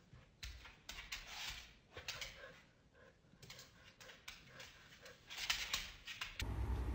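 Pets scuffling while they play: irregular scrabbling, scuffs and light knocks of paws on a wooden floor. Near the end these give way abruptly to a steady low hum with a voice.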